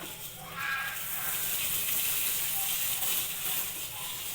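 Water being poured onto a sawdust mushroom-substrate mixture, a steady rushing hiss that starts about half a second in; the sawdust is still being wetted because it is dry.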